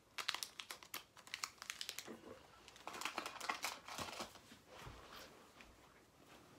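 Crinkling and crackling of a small fishing-hook package being handled and opened by hand, in quick runs of sharp ticks that thicken about three seconds in and fade out near the end.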